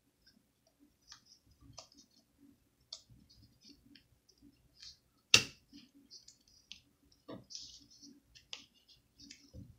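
Small, scattered clicks and taps of fingers working the tiny display cable plug into its socket on the back of a laptop screen, with one sharper click about five seconds in.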